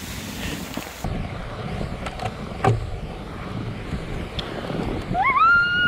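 Fat-tyre mountain bike rolling through snow towing a sled, with wind rumbling on the bike-mounted camera's microphone and a few small clicks. Near the end a loud high-pitched squeal rises, holds for about a second and a half, then drops away.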